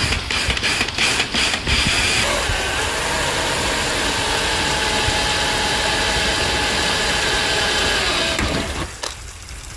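Cordless drill with a step drill bit boring a 12 mm hole through the sheet metal of a car's front guard: a few short clicks at first, then the drill running steadily for about six seconds before stopping.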